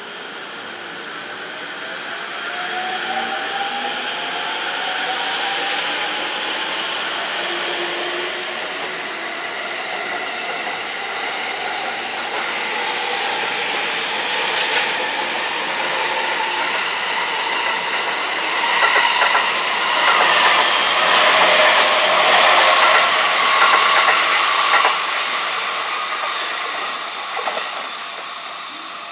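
A train passing. Its running noise builds to a peak about two-thirds of the way through, with a rising whine near the start and wheel clicks over the rail joints at the loudest part, then fades.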